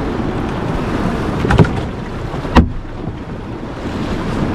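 Wind buffeting the microphone, with two sharp knocks on the boat's deck, one about a second and a half in and one a second later.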